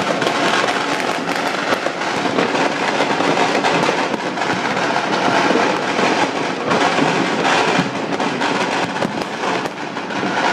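Many fireworks and firecrackers going off at once: a dense, unbroken barrage of overlapping pops, crackles and bangs.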